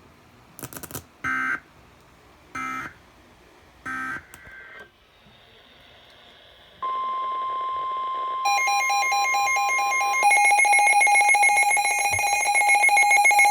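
NOAA Weather Radio alert signalling between warnings. Three short bursts of screechy digital SAME code come first. About seven seconds in the steady single-pitch warning alarm tone starts, announcing a new flash flood warning. A loud, rapidly pulsing electronic alarm beep joins it about a second and a half later and runs on after the steady tone stops.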